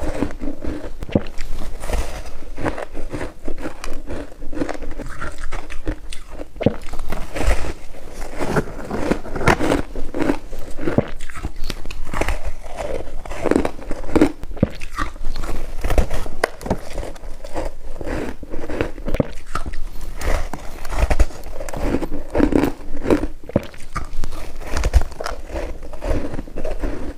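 Someone biting and chewing white snow ice: a continuous run of irregular crunches and crackles.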